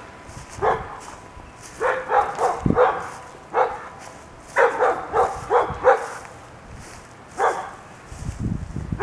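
A dog barking in short barks, some single and some in quick runs of four or five.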